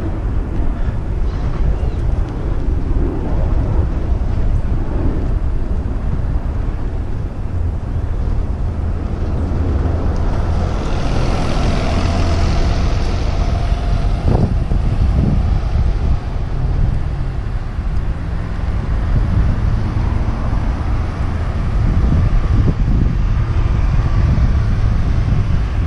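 Steady low rumble of wind and road noise on a moving action camera, with traffic going by. About ten seconds in, a city bus passes close alongside, its hiss and engine note swelling for a few seconds and then fading.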